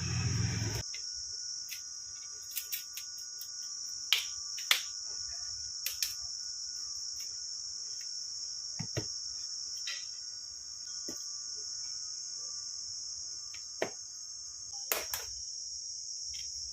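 Scattered sharp clicks and snaps from the smartphone's plastic parts and repair tools as the phone is taken apart, a few loud ones among many faint ones. Underneath runs a steady high-pitched chirring.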